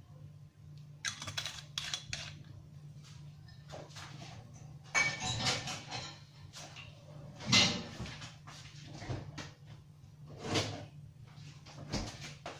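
Kitchen cupboard door being opened and shut with items knocked and rattled inside while an ingredient is fetched: a scatter of knocks and clatters, the loudest a little past halfway, over a steady low hum.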